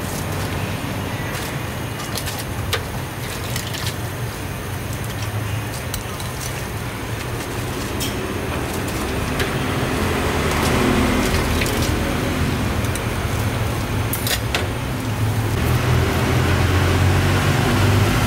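Steady road-traffic rumble, with a few sharp clicks through it.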